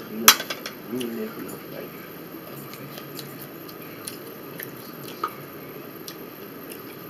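Close-up eating sounds: chewing and small ticks and clicks of cutlery on a plate and a plastic food tray. A sharp click about a third of a second in is the loudest sound, with another clear one after about five seconds.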